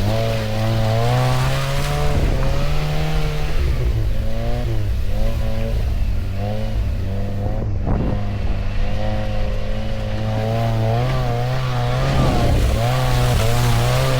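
Lada Niva's four-cylinder engine revving hard under load, its pitch rising and falling again and again, with a wavering higher whine over it.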